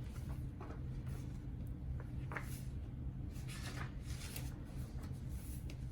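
Soft paper rustling and light handling clicks as the pages of a picture book are turned, over a steady low hum.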